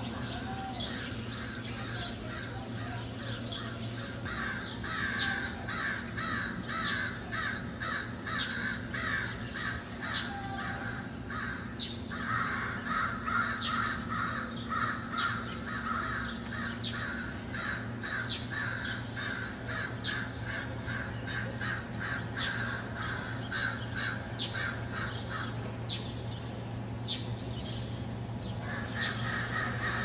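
Crows cawing over and over in long overlapping runs, with quick high bird chirps scattered among the caws. A steady low hum runs underneath.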